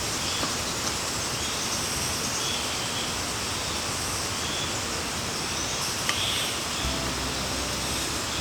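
Steady hiss of rain falling, with a few faint clicks; a low hum comes in about seven seconds in.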